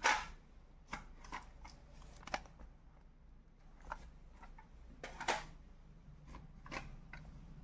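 Sealed audio cassettes being handled: irregular plastic clicks and rustles of the cases and their wrapping, the loudest right at the start and another about five seconds in.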